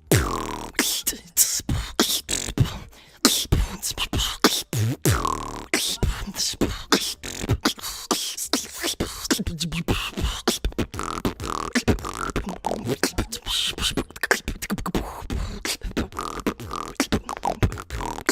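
A woman beatboxing: a fast, continuous run of mouth-made kick, snare and hi-hat sounds, woven with pitched hummed tones that slide up and down.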